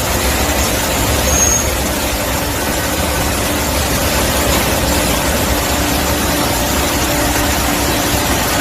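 Chip and coolant-tank cleaner running steadily: a loud, even hiss over a low rumble, unchanging throughout.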